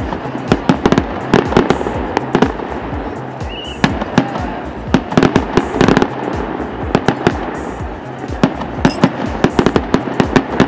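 A fireworks display: shells bursting in a rapid, irregular string of sharp bangs that come in clusters, several a second at the busiest.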